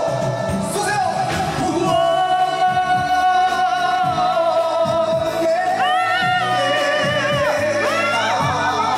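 Two singers on karaoke microphones doing wordless sokmori-style R&B melisma, "woo-oh" and "ah-ah-ah". One long held note comes first, then a few swooping runs that rise and fall near the end.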